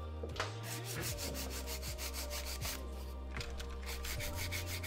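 Hand nail file rasping back and forth across a freshly infilled acrylic nail, in quick even strokes, several a second.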